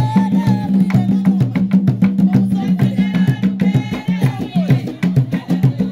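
Drum-led African dance music with a fast, steady beat, sharp clicking percussion and a singing voice over it.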